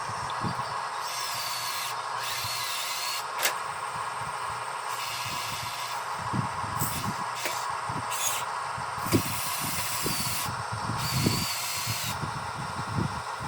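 Small electric motors and plastic gearing of a radio-controlled construction model running with a steady whine, with bursts of hiss that switch on and off and several short knocks.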